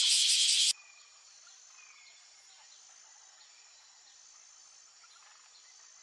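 Cicadas singing: a loud, rapidly pulsing buzz that cuts off suddenly under a second in. It is followed by a faint background with a few thin, high calls.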